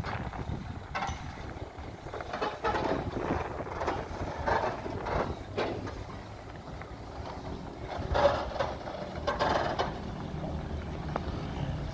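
A heavy vehicle's engine rumbling at low speed as it slowly tows a large catamaran on a multi-axle trailer, with irregular creaks and rattles from the trailer and its load.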